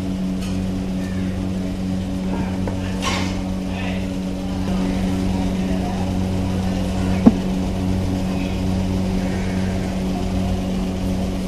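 Steady low machine hum with one sharp knock about seven seconds in.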